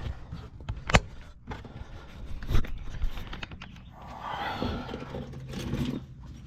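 Hand tools being handled: two sharp knocks, about one and two and a half seconds in, then a stretch of scraping and rustling.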